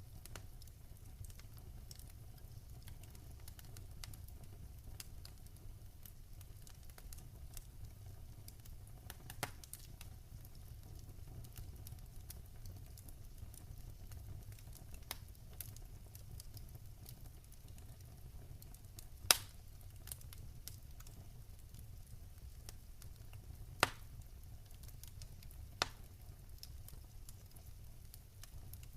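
Wood fire crackling over a low, steady rumble, with many faint ticks and a few sharp pops in the second half, the loudest about two-thirds of the way in.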